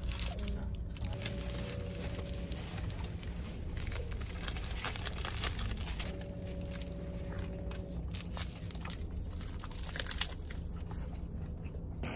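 Plastic onigiri wrappers crinkling and rustling in irregular small clicks, with biting and chewing, over the car's steady low hum.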